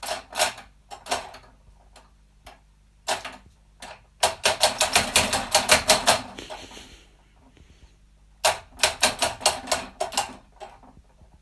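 Rapid sharp clicks or taps, several a second, in a few bursts with pauses between; the longest run comes a little before the middle.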